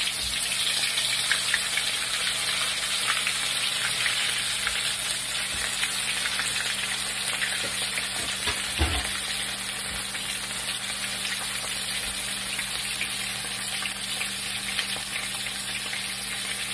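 Whole flour-coated grouper (lapu-lapu) shallow-frying in hot oil in a wok: a steady sizzle with many small crackles, as the fish has just gone into oil hot enough to bubble hard around it. One soft thump about nine seconds in.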